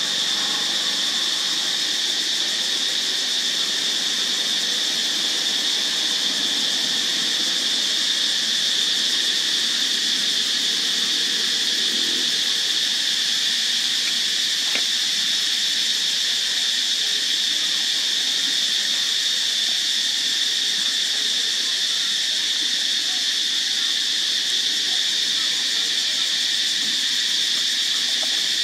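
Steady high-pitched insect chorus droning without a break, with a faint low murmur beneath it for about the first twelve seconds.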